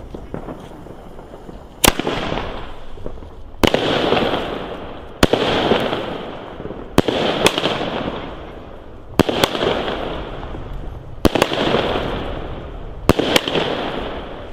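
Consumer firework battery firing about seven shots, roughly one every two seconds. Each is a sharp bang, several followed at once by a second pop, then a crackling hiss that fades over a second or so.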